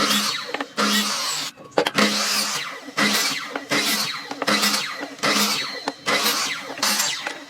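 A hand tool working wood in repeated rasping strokes, about one stroke every 0.8 s, as in sawing or planing by hand.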